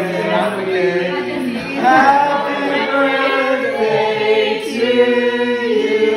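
A small group of people singing together, holding long notes.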